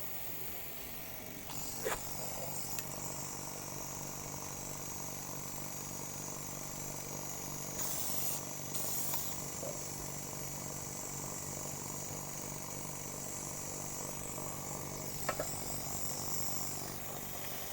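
A steady electric machine hum with a constant high hiss, broken by a few light clicks and a brief burst of noise about eight seconds in.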